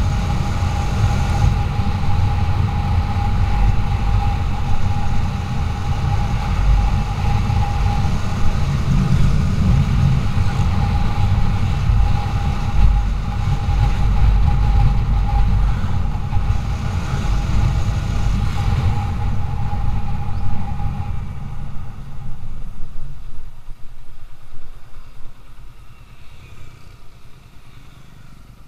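Motorcycle being ridden, its engine running under a heavy low rumble with a steady whine; the sound dies down over the last few seconds as the bike slows behind a car.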